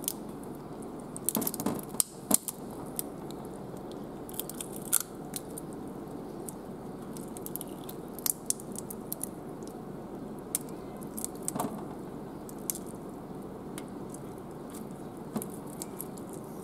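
Scattered sharp snips and crackles of kitchen scissors cutting down the centre of raw yabby (freshwater crayfish) tails and the shell cracking as it is pulled apart, over steady background noise.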